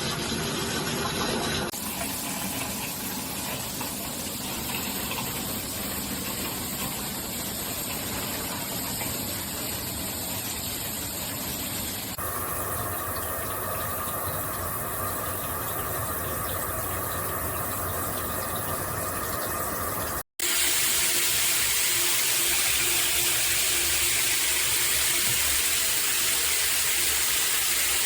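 Water spraying steadily from an AULEEND 8-inch round stainless steel rain shower head, a continuous hiss of falling water. The sound changes abruptly twice and cuts out for a moment about 20 seconds in, as separate takes follow one another.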